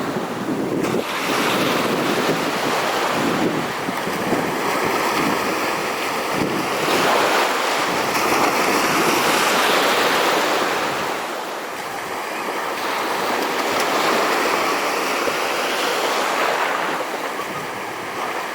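Wind buffeting the microphone over rushing sea water, swelling and easing every few seconds, with a faint steady whine coming and going.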